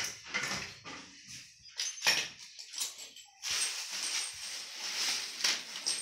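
Knocks and clicks of machine parts being handled during fitting, turning into a denser rustling and clattering about three and a half seconds in.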